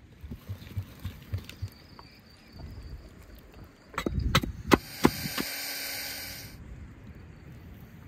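Axe chopping a wooden stake to a point on a stump: about five sharp wooden chops in a second and a half, overlapped near the end by a rushing hiss for about a second and a half. Before them, a run of soft low thumps.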